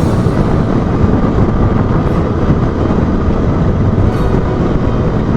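Steady wind rush on an action camera's microphone over the Honda Bros 160's single-cylinder engine, the motorcycle cruising at about 80–90 km/h.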